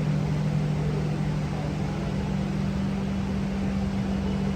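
A steady low machine hum, two constant tones over an even hiss, with no change.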